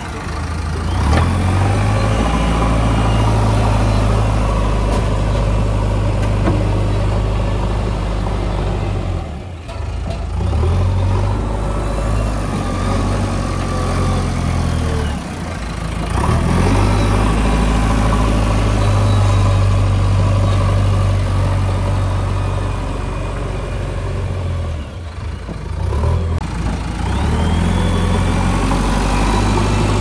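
JCB backhoe loader's diesel engine running under work, its pitch rising and falling as the machine pushes and levels soil. It eases off briefly three times, about ten, fifteen and twenty-five seconds in.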